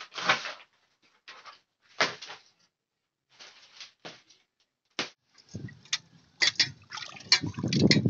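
A machete hacking dry sticks and brushwood into firewood: a string of separate cracking, rustling strokes, with one sharp crack about five seconds in. From about five and a half seconds there is a denser run of clicks and splashing over a low rumble as hands wash fish in a pot of water.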